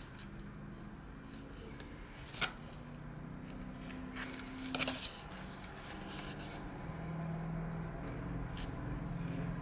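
Small paper cards and photo prints handled by hand: soft paper rustling with a few crisp taps and snaps, the loudest a short cluster about five seconds in.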